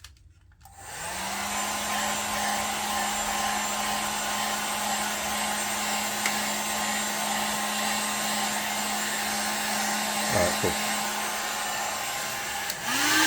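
Handheld hair dryer switched on about a second in, its motor spinning up and then running steadily, blowing air to dry the alcohol-cleaned pistol grip.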